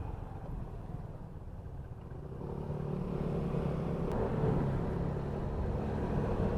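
Motor vehicle engine and road rumble on a ride, heard through a helmet-mounted recorder's microphone. About two and a half seconds in, a steady engine hum comes up and grows a little louder.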